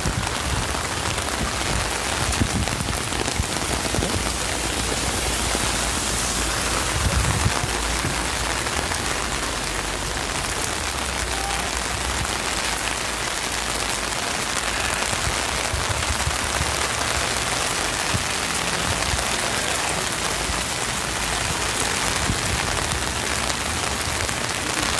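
Heavy rain falling steadily and pattering on an umbrella held overhead, with an uneven low rumble underneath.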